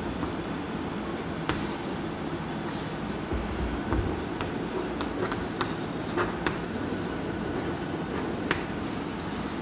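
Chalk writing on a blackboard: scratchy strokes with scattered sharp taps as the letters are formed, over a steady low hum.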